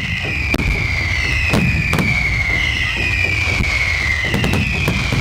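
Fireworks display: a series of sharp bangs over a steady low rumble of shells bursting, with repeated high whistles that each slide down in pitch about once a second.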